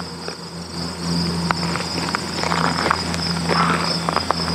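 Insects chirring steadily in the roadside grass and trees, a high pulsing drone, with irregular footsteps on the dirt road shoulder that grow from about a second in.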